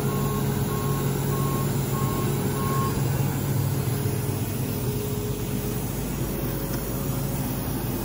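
New Holland combine's diesel engine running steadily as the combine backs slowly off its trailer, with its reverse alarm beeping about every half second until about three seconds in.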